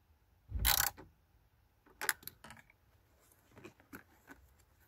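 A ratchet with a 10mm socket clicking in a short burst about half a second in as the negative battery terminal clamp is tightened, followed by a few light clicks and knocks of parts being handled.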